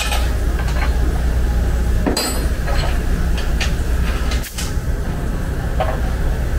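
A steady low hum with a few short metallic clinks, one a little after two seconds.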